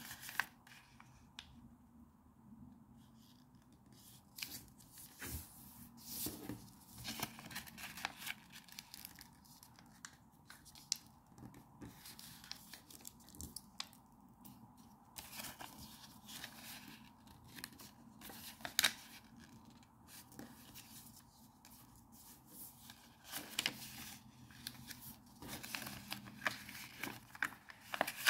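A sheet of origami paper being folded and creased by hand: irregular rustling and crinkling, with short sharp swipes as folds are pressed flat, the sharpest a little past the middle.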